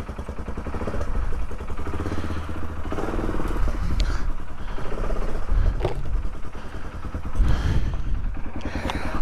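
Polaris ATV engine running and revving under load while the quad works its way up a riverbed, with a few sharp knocks and scrapes from the machine against rocks, one about four seconds in and another near six.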